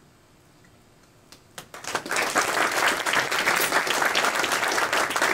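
A quiet room, then an audience breaks into applause about a second and a half in. A few first claps are followed by steady clapping from the whole room.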